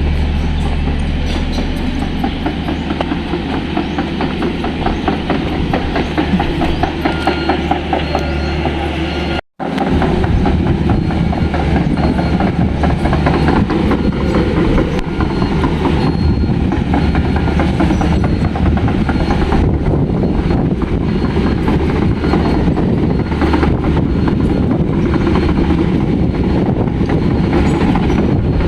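Heavy road-construction machinery running: a diesel engine's steady low drone under a rapid rattling clatter. The sound cuts out for an instant about nine seconds in, then resumes a little louder.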